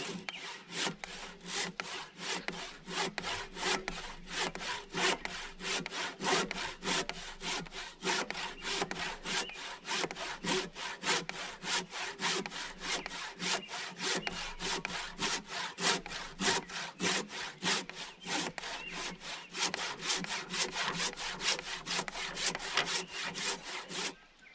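Handsaw cutting through a green log in steady back-and-forth strokes, about two a second. The strokes stop abruptly just before the end.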